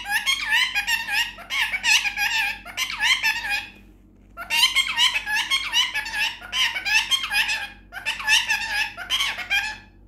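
Indian ringneck parakeet chattering in rapid, high-pitched, talk-like syllables, in three runs with short pauses about four and eight seconds in.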